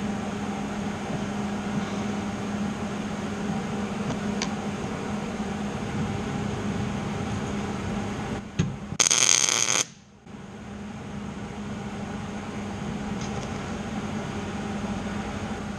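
A single short MIG tack weld, under a second of crackling arc about nine seconds in, over a steady low hum of shop equipment.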